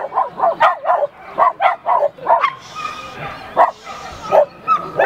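West Highland White Terrier barking in rapid, high yaps, several a second, which break off about halfway and return as a few single barks near the end.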